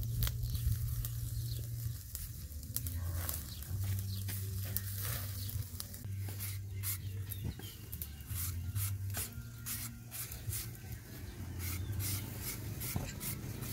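Whole fish roasting on a wire grill over a charcoal fire, with scattered crackles and pops over a low steady rumble. Near the end, mango being shredded on a hand grater.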